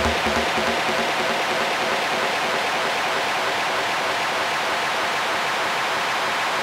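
Electronic dance track in its closing stretch: a steady wash of hiss-like noise, with a low bass note dying away in the first half-second.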